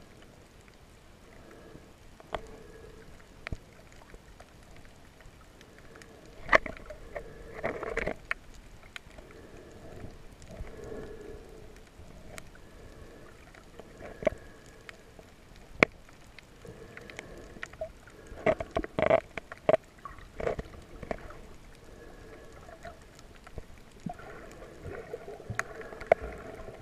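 Underwater sound picked up by a submerged camera: muffled gurgling swells that come and go every few seconds, with scattered sharp clicks and knocks, clustered about six to eight seconds in and again near nineteen seconds.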